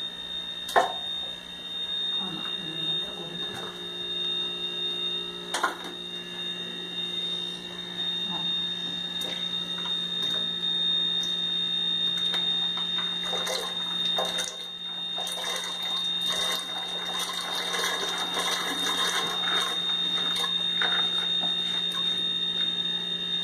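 Dried beans being poured from a bowl into a pressure cooker of liquid, clattering and splashing for several seconds in the second half. A steady high whine and a low hum run underneath, with a sharp knock near the start and another about five seconds in.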